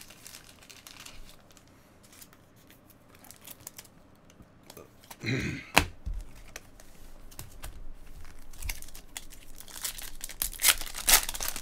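A Bowman's Best baseball card pack's wrapper being handled, crinkling, then torn open with a loud rasping rip near the end. A sharp click comes about halfway through.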